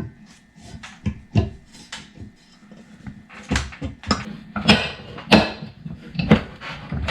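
Shifter assembly parts clicking and knocking irregularly as a bushed centerpiece is worked down into its hole in the shifter, the knocks louder and closer together in the second half.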